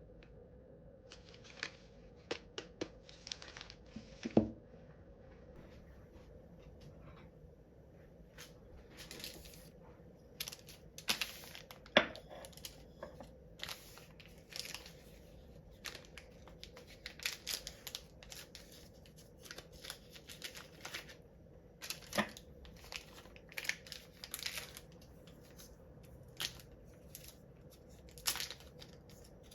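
Packaging being handled and torn open: short bursts of crinkling and tearing, with a couple of sharp knocks.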